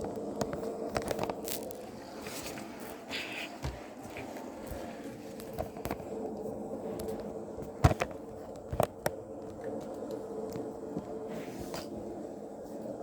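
Steady low background hum with scattered clicks and knocks of handling, the sharpest about 8 and 9 seconds in.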